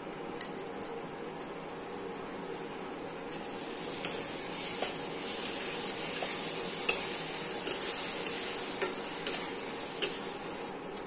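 Thick tomato pizza sauce sizzling in a metal kadhai while a spatula stirs it, with scattered scrapes and clicks against the pan. The stirring gets louder about four seconds in.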